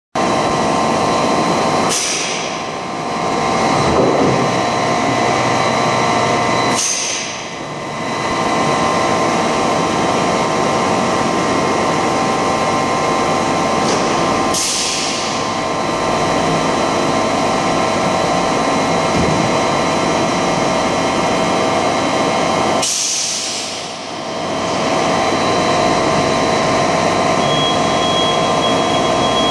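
Large extrusion blow moulding machine running: a steady machine hum holding several steady tones, broken four times by sudden hisses that fade out over about a second. A high thin whine joins near the end.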